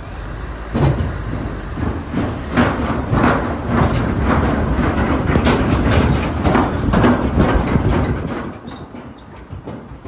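Car tyres running over the deck panels and joints of a steel-truss Bailey bridge: a low rumble with a dense run of irregular knocks and rattles, easing off near the end.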